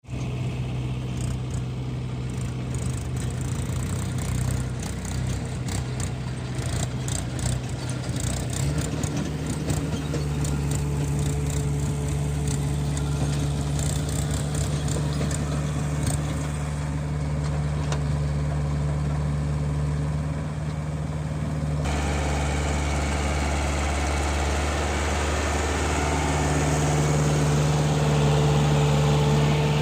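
Heavy diesel engine of a backhoe loader running steadily, its pitch stepping up about nine seconds in, with light clicks in the first few seconds and an abrupt change in the sound about 22 seconds in.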